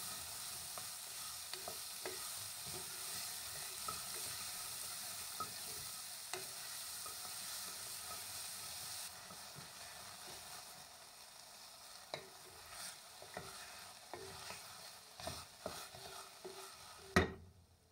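Diced onion and carrot sizzling in an enameled cast-iron Dutch oven while a wooden spoon stirs them, knocking and scraping against the pot. The sizzle eases about halfway through. Near the end there is one louder knock, and then the sizzle cuts off.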